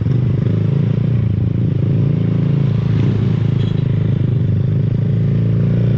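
Small motorcycle engine running steadily while riding, close to the GoPro's built-in microphone.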